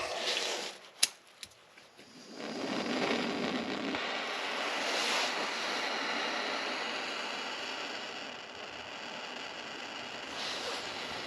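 Handheld gas torch: a sharp click about a second in, then a steady hissing flame from about two seconds on, easing slightly near the end.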